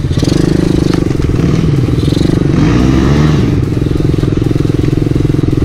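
Pit bike engine running while riding on a dirt track, a steady drone whose pitch dips and rises with the throttle a few times about halfway through.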